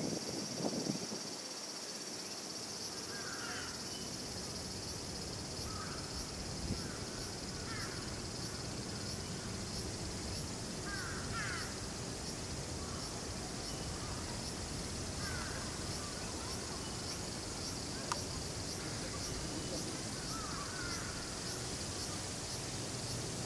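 A steady high drone of summer insects, with a crow cawing at intervals of a few seconds.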